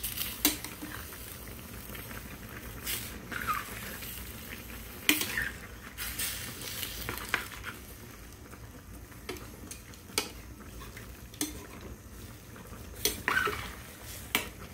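Metal spoon stirring chicken drumsticks and gizzards in a metal pan of simmering adobo: irregular clinks and short scrapes of the spoon against the pan over a steady sizzle.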